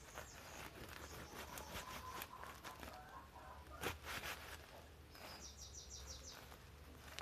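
Machete slicing through jackfruit rind and flesh: a run of soft crisp cuts and clicks, the sharpest about four seconds in. A bird gives a quick run of high chirps a little after the middle.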